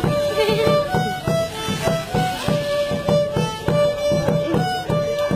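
Solo violin playing a march melody in held, stepping notes, over a drum keeping a steady beat.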